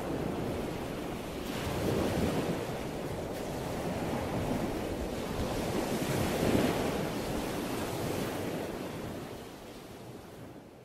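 A rushing, surf-like wash of noise with no music or voice. It swells about two seconds in and again a little past six seconds, then fades out near the end.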